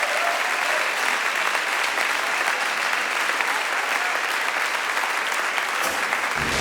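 Audience applauding steadily. Just before the end a low-pitched sound comes in.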